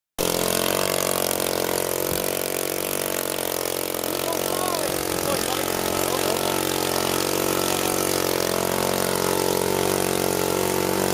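Small model-aircraft engine on a WOT 4 running steadily at idle with an even, unchanging pitch.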